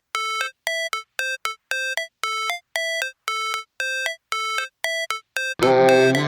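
Background electronic music: a repeating figure of short, bright synth notes, about three a second, then a fuller track with bass comes in near the end.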